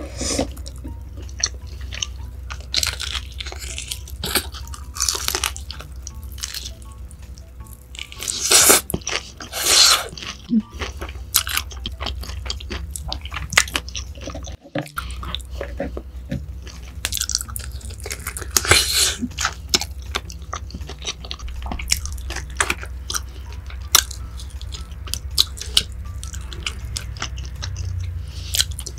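Crunchy food bitten and chewed close to the microphone: a continuous run of crisp crunches and wet chewing, with a few louder crunching bites about a third of the way in and again around two-thirds of the way through.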